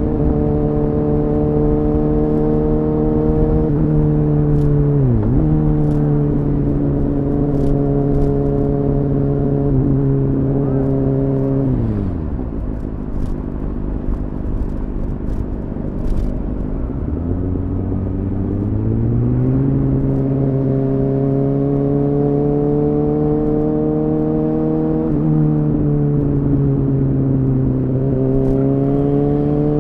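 Kawasaki Ninja ZX-6R's 636 cc inline-four with an Akrapovic exhaust running at a steady cruise, heard from a recorder carried in a bag. About five seconds in the engine note dips briefly and comes straight back. Around twelve seconds the revs fall away and it runs lower and quieter for a few seconds, then climbs back up and holds steady.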